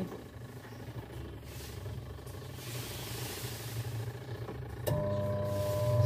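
Sharp twin-tub washing machine's wash motor humming with the pulsator not turning at all: the motor is powered but stalled. The hum steps up about five seconds in, with a higher steady tone joining it.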